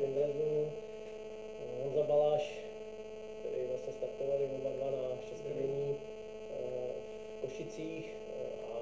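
Steady electrical mains hum, with a man talking quietly over it.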